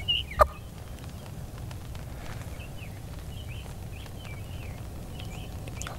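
Faint bird chirps over a low, steady rumble of wind, with one sharp, short, loud sound about half a second in.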